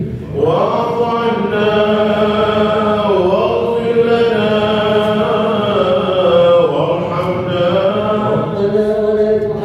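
Unaccompanied Islamic dhikr chanting: a vocal phrase starts just after the beginning and is sung in long held notes, with the pitch sliding down and back up twice along the way.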